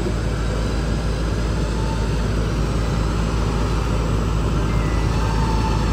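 An off-road vehicle's engine running steadily, a low even rumble with no change in pitch.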